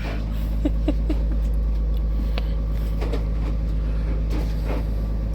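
Steady low engine hum of the idling tool truck, unchanging throughout, with faint voices in the background.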